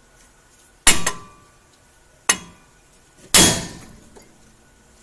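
Three hard metal hammer blows on a truck's steering knuckle and ball joint, the first a quick double strike, each ringing briefly. The ball joint is being knocked loose from the knuckle by hammering, because no ball-joint separator tool is at hand.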